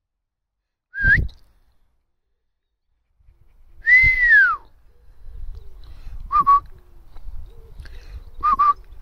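A handler's whistle commands to a working sheepdog: a short rising whistle, a long falling whistle a few seconds in, then two short warbling whistles, with wind rumbling on the microphone.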